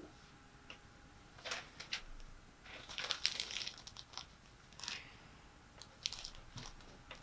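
Faint, scattered crinkling and rustling noises with a few small clicks, most of them bunched about three seconds in, over a faint steady tone.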